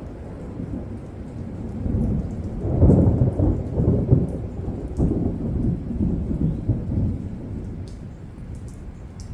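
Thunder rumbling during rain, swelling about two to three seconds in, rolling on in waves and fading toward the end, with scattered sharp drips over the steady rain.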